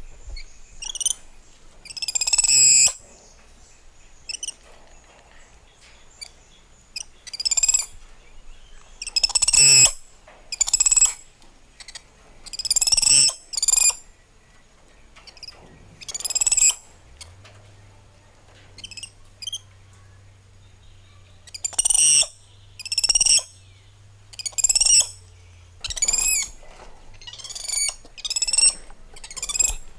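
Spider monkeys calling: a series of high-pitched, wavering calls, each lasting up to about a second, coming every second or two with a few longer pauses.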